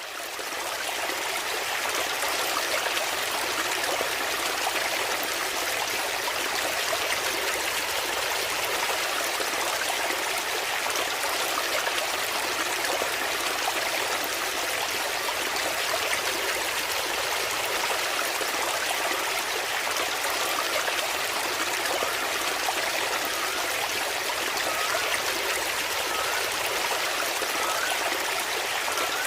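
Small waterfall pouring steadily into a fish pond: a constant, even rush and splash of water that fades in over the first second. A few faint, short rising chirps come in near the end.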